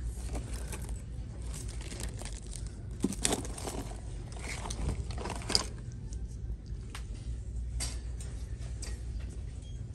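Wallets being handled on a store shelf: scattered rustles, scrapes and light clicks of leather, zippers and plastic, busiest around three and five seconds in, over a steady low hum.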